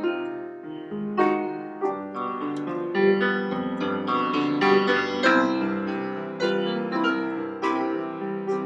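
Grand piano played solo at a slow pace, with new notes and chords struck about once a second and left to ring, fading away near the end.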